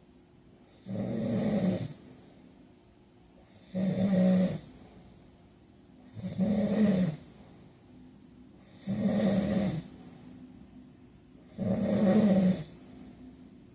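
A man snoring in a steady rhythm: five snores, each about a second long and coming roughly every two and a half to three seconds, each a low buzzing snore with quiet breathing between.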